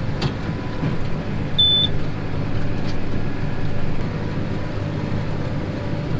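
Tractor engine running steadily under way, a constant low hum heard from inside the cab.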